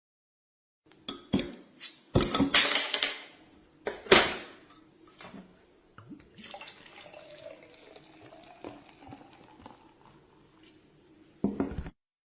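A drink being handled and poured: clinks of glassware, two loud hissing bursts, then a quieter stretch of liquid pouring, and one more short burst near the end.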